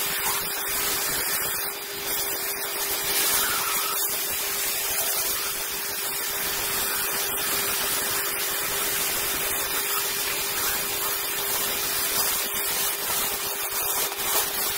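Abrasive waterjet cutting stream hissing steadily as it cuts through a pyrite-bearing rock, with water churning in the catch tank and a steady tone underneath.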